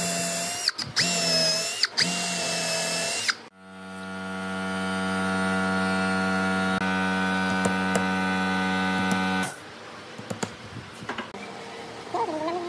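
Hand-held power drill with a twist bit boring a hole into a wooden beam, in three short runs over the first three and a half seconds, each speeding up and running down. Then a steady hum fades in, holds for about six seconds and stops suddenly, leaving quieter handling sounds.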